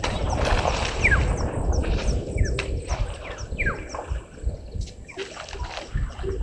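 Elephants sloshing and splashing in the waterhole, over a rough low rumble. Birds call throughout in repeated short falling notes.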